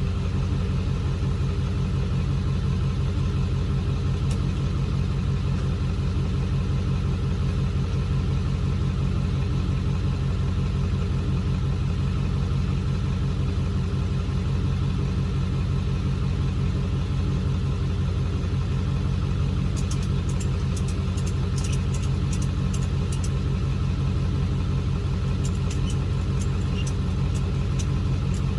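Car engine running steadily, a constant low drone. Two short runs of quick, sharp ticks come in about twenty seconds in and again near the end.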